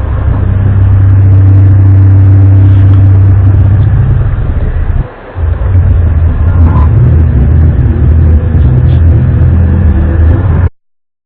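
Loud, low droning hum held at a steady pitch. It breaks off briefly about five seconds in, resumes, and cuts off abruptly near the end.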